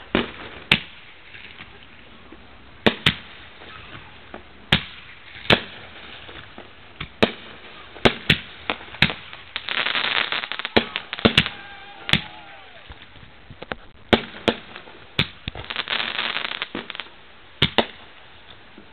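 Fireworks going off: irregular single bangs every half second to two seconds, with two bursts of dense crackling, one about halfway through and another a few seconds later.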